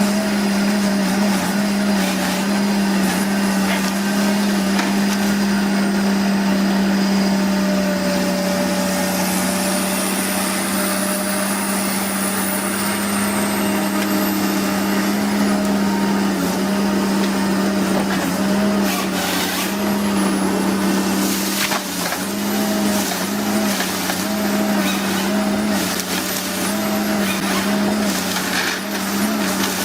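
Woodworking machine running and working wood: a steady low motor hum over the noise of the cut, the hum dipping briefly now and then, with a few sharp clicks in the second half.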